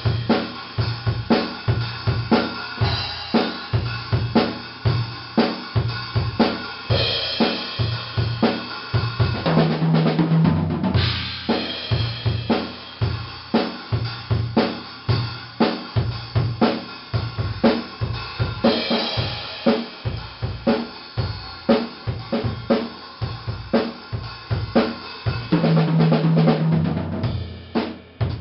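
Acoustic drum kit played to a steady beat, with kick drum, snare, hi-hat and cymbals, ending in a quick run of strokes.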